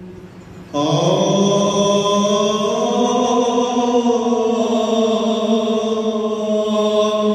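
A man's voice chanting an Orthodox Christian liturgical blessing, entering about a second in and holding long sung notes, with the pitch rising slightly partway through.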